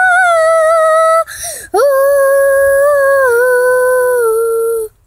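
A child's high voice singing two long held notes, with a short breath between them about a second in. The second note is lower and slides down near its end.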